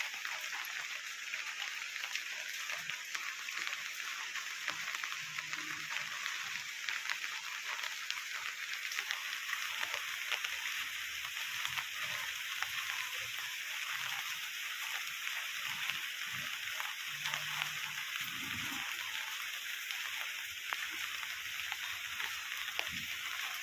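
Steady hiss and fine crackle of rain falling.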